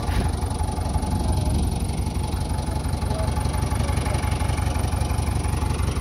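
JCB 3DX backhoe loader's diesel engine idling steadily, with an even low, throbbing rumble.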